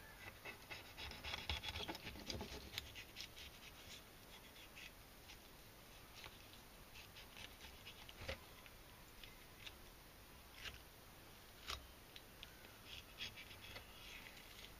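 Faint knife scraping and slicing through a raw yellowtail fillet on a wooden cutting board as the rib bones are shaved away, with scattered soft clicks and a few light taps.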